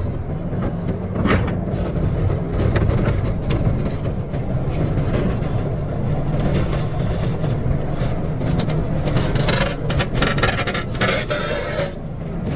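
Excavator's diesel engine running steadily, with metallic clanking and scraping over it that is loudest for a few seconds near the end.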